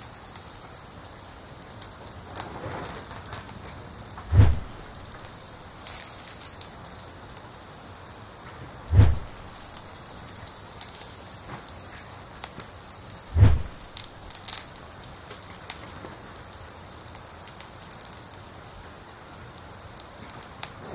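Steady fine crackling noise with three dull, low thumps spaced about four and a half seconds apart.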